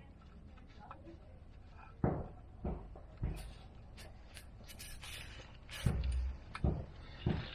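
A series of about six sharp knocks and clunks, irregularly spaced, from tools and metal parts being handled during work on the car's rear suspension arm.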